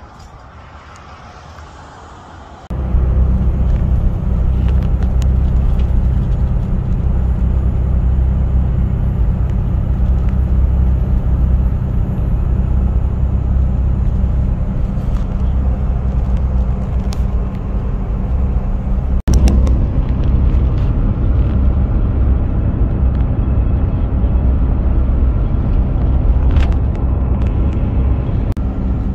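Steady low engine and road drone inside a vehicle's cabin at highway speed. It starts suddenly about three seconds in after a quiet outdoor hush, and drops out for an instant about two-thirds of the way through.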